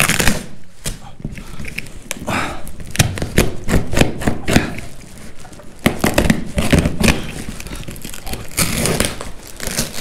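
Cardboard shipping box being torn open with a key: packing tape and cardboard ripping and crinkling in a run of short, sharp scrapes and tears.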